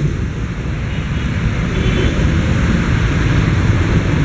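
Street traffic: vehicle engines and road noise rumbling steadily.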